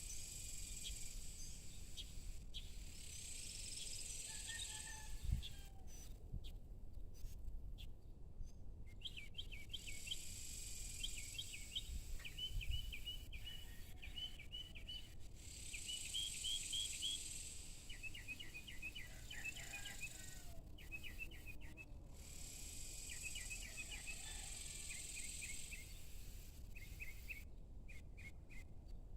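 Evening outdoor soundscape: insects buzzing high and thin in spells of a few seconds each, with small birds giving quick runs of repeated chirps through much of it.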